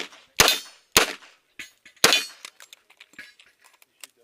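Revolver shots fired at an uneven pace on a shooting-match stage: about four sharp reports in the first two seconds, then only faint ticks.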